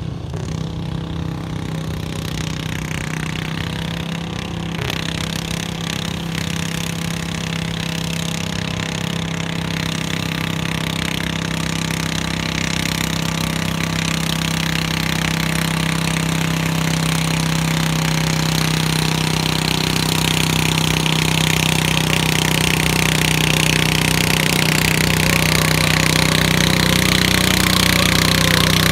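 Small garden tractor engine running under load at a steady speed as it pulls a weight-transfer sled along a dirt pulling track, growing slowly louder as it approaches.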